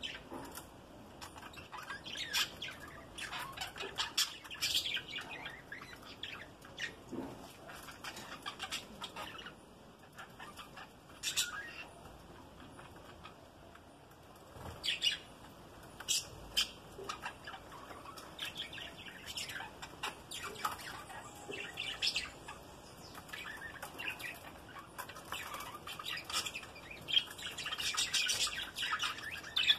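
A flock of budgerigars chattering: quick, high chirps and squawks coming on and off, busiest and loudest near the end.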